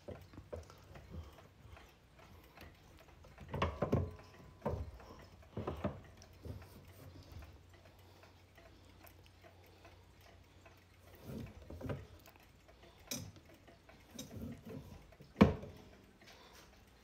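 Howard Miller oak regulator wall clock being handled: wooden knocks and clicks from its pendulum case as the pendulum is set swinging, with the movement ticking. A sharp knock near the end is the loudest.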